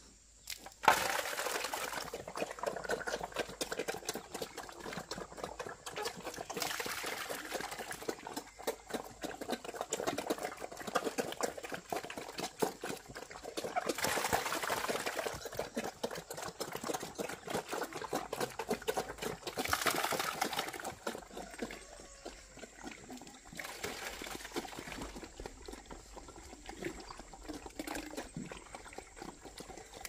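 Pigs eating wet swill from a trough: a continuous wet slurping and chomping that swells and fades several times.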